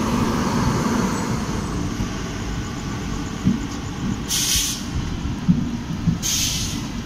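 Passenger train running on the track: a steady low rumble of the coach and wheels, with a couple of light knocks and short bursts of hiss about four seconds in and again near the end.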